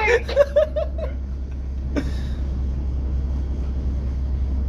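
Steady low rumble of a boat's engine on board, with a man's voice briefly in the first second and a single knock about two seconds in.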